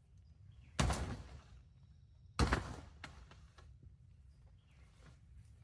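Two sharp thunks about a second and a half apart, followed by a few lighter clicks, from a pop-up hunting ground blind's frame and fabric being pushed in and collapsed.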